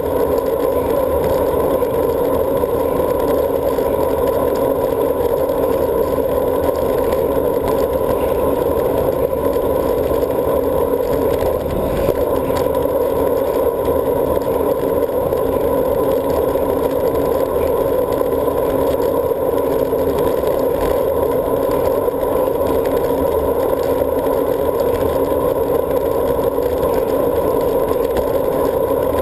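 Steady, muffled rush of wind and road noise on a handlebar-mounted GoPro Hero as a road bike rolls at speed along the bridge path.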